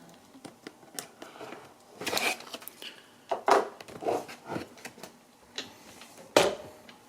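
Cardboard box being cut open with a small box opener and handled: irregular short scraping and rustling strokes with clicks, and one sharp knock about six seconds in.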